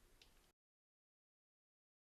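Near silence: the faint tail of a preceding sound dies away within the first half second, then dead digital silence.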